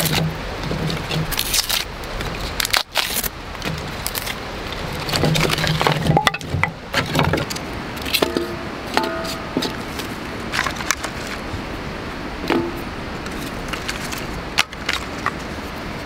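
Thin split kindling sticks clacking and cracking as they are pulled apart by hand and set down in a steel fire pit, with sharp irregular knocks scattered through over a steady background hiss.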